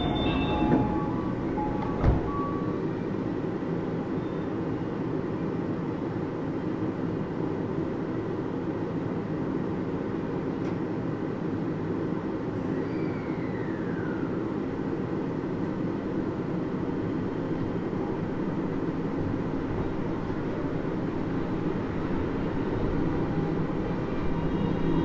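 Interior running sound of a Hitachi-built Disney Resort Line Series 10 (Type-X) rubber-tyred straddle monorail car underway: a steady rumble with a single knock about two seconds in. Near the end, the hum of its IGBT-VVVF traction inverter and motors comes in.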